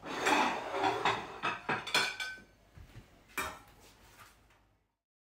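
Clatter of a ceramic plate and a metal spatula being picked up and knocked together, with ringing clinks for about two seconds, then one sharp knock a little after three seconds; the sound stops abruptly near the end.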